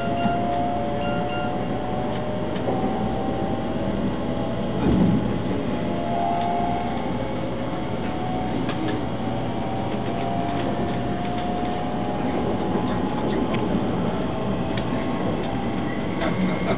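Steady cabin noise of a Taiwan High Speed Rail train running at speed, with faint whining tones that drift slowly in pitch and a few light ticks. A brief thump about five seconds in.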